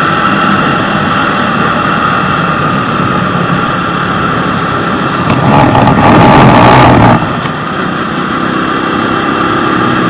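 Motor scooter running steadily on the road, its engine under a heavy rush of wind and road noise. The rush swells louder for about a second and a half in the middle.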